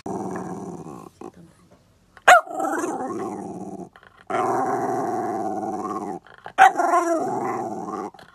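Jack Russell terrier vocalizing in four long, drawn-out calls, each starting with a sharp high note that drops into a steady held, growly tone.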